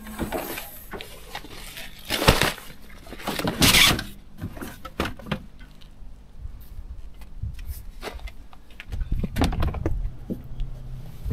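Camping gear being handled and packed at an open car hatch: several bursts of rustling from bags and packs, the loudest about two and four seconds in, with scattered light knocks and clicks and a low rumble near the end.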